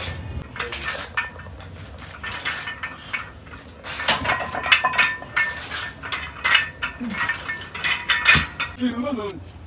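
Iron weight plates clinking and rattling against a barbell as it is curled: repeated sharp metallic clicks and knocks, with short spells of metallic ringing.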